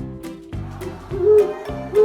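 An animal's call, short low arched notes repeated twice from a little over a second in, over background music with a steady beat.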